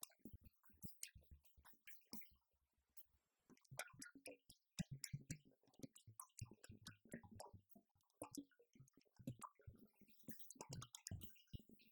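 Faint drumming on an electronic drum kit: a busy run of quick, irregular stick strokes with a short pause about two seconds in.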